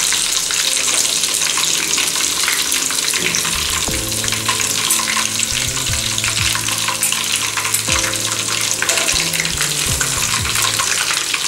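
Chicken drumsticks deep-frying in hot oil in a kadai, a steady bubbling sizzle. A few dull knocks come as a wire spider strainer lifts a piece out against the pan.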